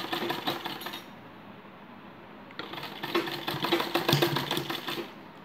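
Domestic sewing machine stitching in two runs: rapid needle strokes for about a second, a short pause, then a longer run of about two and a half seconds.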